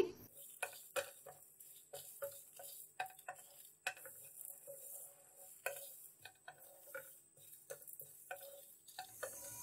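Wooden spatula stirring whole spices (dried red chillies, cloves, peppercorns, coriander seeds) as they dry-roast in a non-stick frying pan: faint, irregular light taps and scrapes of the spatula and seeds on the pan.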